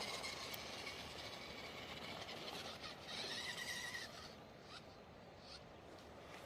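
Electric motor of a radio-controlled truck whining: a faint high steady tone early on and a clearer one lasting under a second about three seconds in, over a hiss of wind noise.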